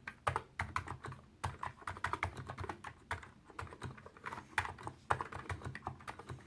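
Typing on a Topre-style capacitive keyboard with light 35-gram keys: a quick, uneven run of quiet keystroke clicks, several a second, with short pauses between bursts.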